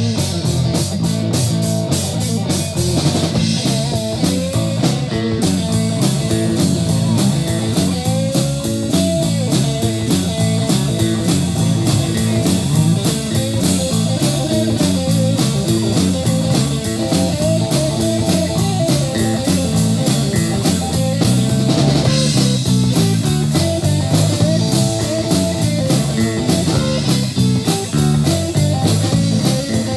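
Live rock band of electric guitar, electric bass and drum kit playing an instrumental break with no vocals: an electric guitar lead line with bent, wavering notes over a bass line and a steady, fast cymbal beat.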